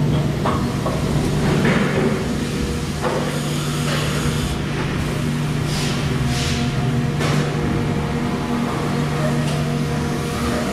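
Factory machinery running: a steady hum with scattered knocks and clatter, and a few short hissing bursts about halfway through.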